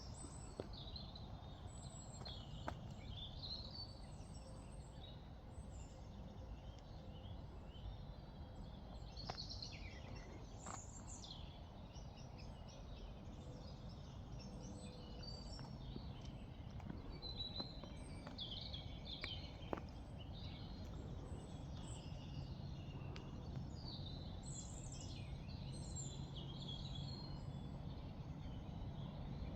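Small birds chirping and twittering in short, scattered calls over a faint steady outdoor background noise, with a few light clicks. A faint low hum strengthens in the second half.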